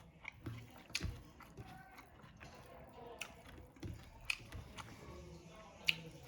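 Close-up chewing and biting of food, with irregular soft wet mouth sounds and a few sharp clicks, the loudest near the end.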